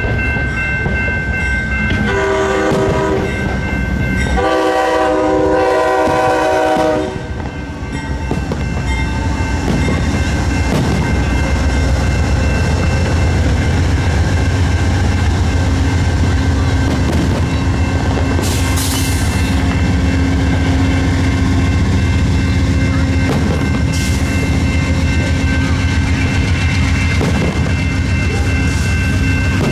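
Amtrak's Empire Builder, led by a GE P42DC diesel locomotive, sounds two long chord blasts on its horn at a grade crossing. It then passes with a steady low rumble of engine and wheels while the crossing bell keeps ringing. Two firework bangs sound overhead while the train goes by.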